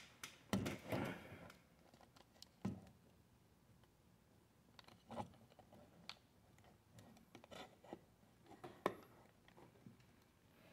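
Faint rustling of someone settling in a seat in the first second or so, then a quiet room with scattered small taps and clicks, the sharpest just under three seconds in.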